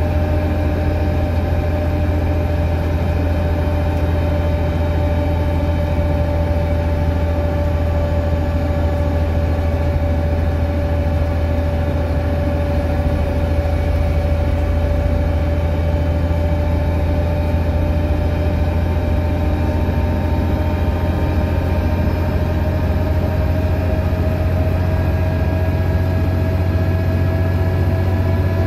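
DAF DB250 double-decker bus on the move, heard from inside the lower deck: a steady low engine and road drone with a whine from the rear axle whose pitch dips slightly and then climbs near the end as the bus gathers speed.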